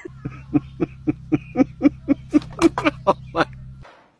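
A quick series of short animal calls, about four a second, growing louder toward the end, over a steady low hum. Both stop abruptly a little before the end.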